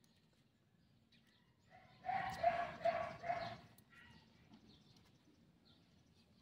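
A dog barking, a quick run of about four barks about two seconds in.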